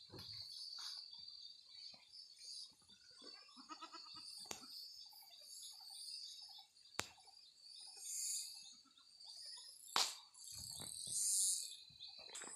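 Steady high-pitched trilling of insects, with a goat bleating faintly a few times. Several sharp clicks, the loudest about ten seconds in.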